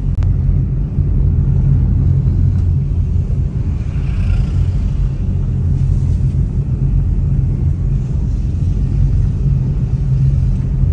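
Steady low rumble of a car driving along a paved road: engine and tyre noise heard from the moving car.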